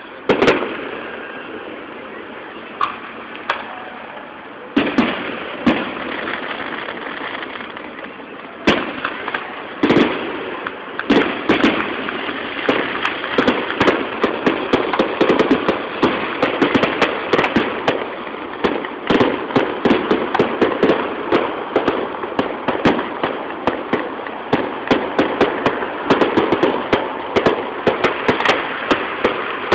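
Aerial fireworks: a few separate sharp bangs spaced seconds apart, then from about eleven seconds in a dense, continuous crackle of many rapid pops a second that keeps going.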